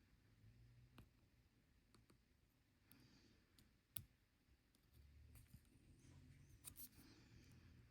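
Near silence with a few faint, sharp clicks and taps of small watch parts being handled. The sharpest click comes about four seconds in, and a small cluster comes near the end.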